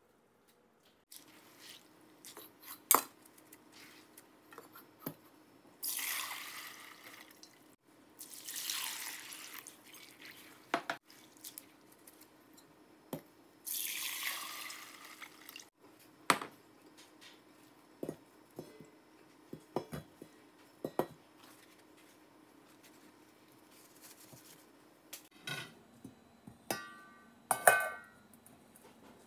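Water poured from a glass bowl of soaked mung beans through a stainless steel mesh strainer, in three pours of a second or two each, with small knocks between them. Near the end, a stainless steel colander clinks against a metal bowl with a short ring.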